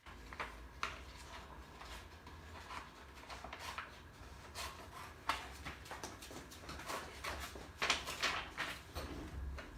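Scissors snipping paper and small paper slips being handled: irregular clicks and rustles, with a low steady hum underneath.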